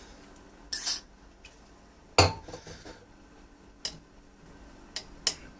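A scattered series of metal clinks and knocks from small tools or parts being handled on a workbench. The loudest knock comes a bit over two seconds in with a few small rattles after it, and lighter sharp clicks follow near the end.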